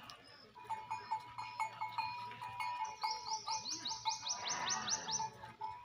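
Livestock bleating once, about four and a half seconds in, over birds calling, with a rapid run of rising high chirps, about five a second, in the middle.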